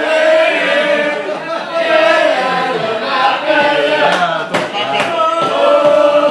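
A roomful of people singing along together, several voices holding long notes, with a few sharp taps a little past the middle.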